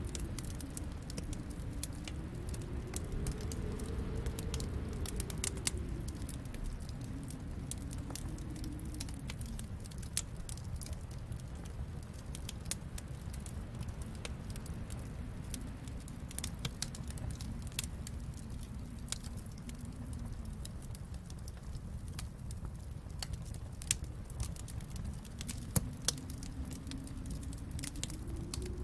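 Wood fire burning in a fireplace: a low, steady rumble of flames that swells and fades, with constant small crackles and pops. A couple of louder pops come near the end.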